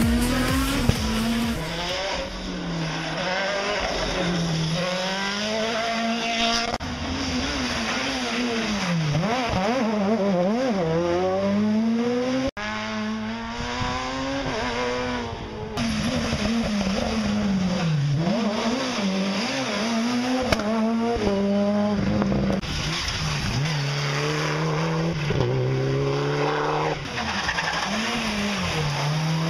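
Rally car engines driven hard through tight bends, one car after another: the engine note climbs and drops again and again through revving and gear changes.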